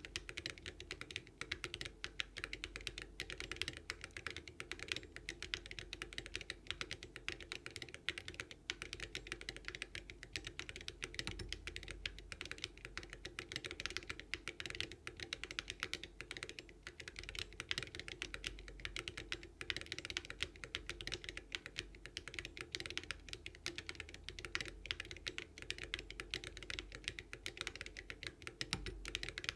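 Typing on a NEO75 CU mechanical keyboard fitted with HMX Snowcrash switches and Awekeys Viking metal keycaps. It is a clacky, continuous run of fast key presses.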